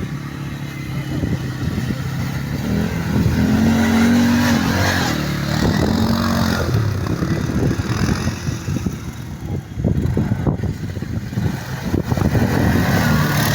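Engine of an Oka-based quad bike revving hard under load as it struggles through a stream crossing, rising in pitch for a few seconds in the middle, with scattered knocks throughout.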